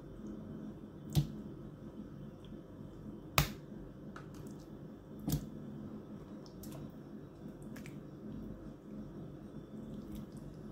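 Sharp clicks and ticks from handling raw chicken pieces in a glass bowl of yogurt marinade: three loud clicks about two seconds apart, then several lighter ticks, over a steady low hum.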